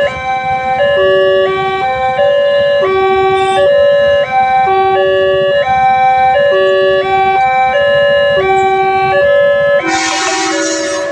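Railway level-crossing warning sirens sounding together, a loud electronic alarm stepping between steady tones in a pattern that repeats about every two seconds. Near the end a loud rushing noise joins in.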